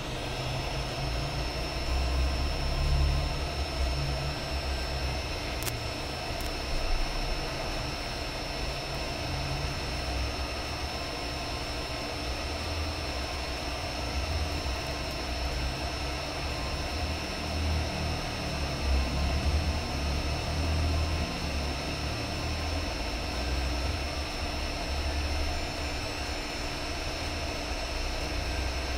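Hot air rework gun blowing a steady stream of hot air onto a freshly placed M92T36 charging IC on a Nintendo Switch motherboard, reflowing its solder: a continuous rush of air with a faint high whine.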